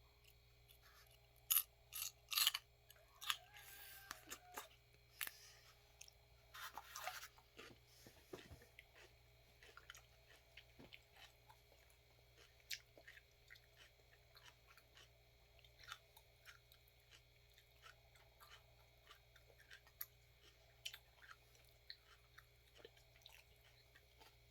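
Celery being chewed: a few crisp crunches in the first seven seconds, then only sparse, faint chewing clicks.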